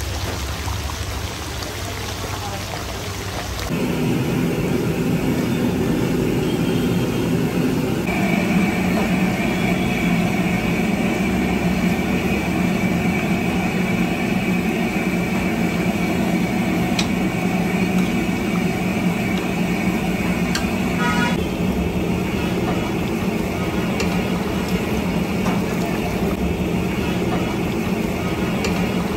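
A huge flat pan of chicken curry bubbling and sizzling hard in oil while a ladle stirs it, over a steady drone and street traffic noise. It grows louder about four seconds in, and a short horn toot sounds about three-quarters of the way through.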